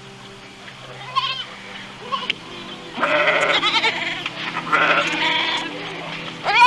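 Goat bleating repeatedly in wavering, quavering calls: a faint short one about a second in, longer ones around three and five seconds in, and a loud one at the end.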